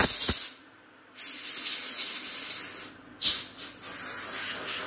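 Compressed-air blow gun hissing in several short blasts, blowing coolant and chips off freshly machined aluminium parts. There are brief pauses between the blasts.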